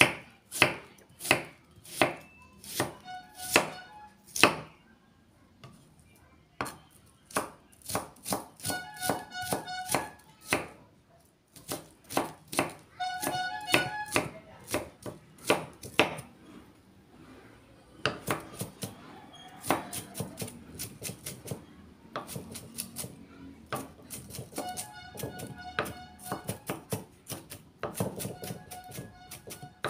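Kitchen knife chopping a red onion on a thick round wooden chopping block: runs of quick, sharp strikes on the wood, broken by short pauses.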